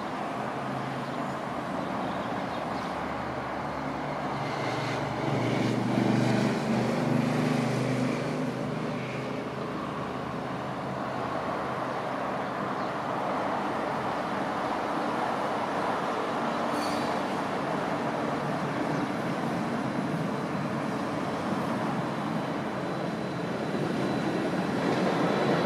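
A Croydon Tramlink tram running in to the platform with a low motor hum, loudest a few seconds in, and starting to pull away again near the end, over steady road traffic noise.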